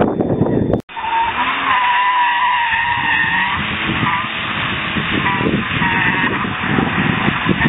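Tyres squealing in a wavering whine as a sedan slides sideways through a corner on wet asphalt, strongest in the first half, with wind rumble on the microphone. The sound drops out for an instant just under a second in.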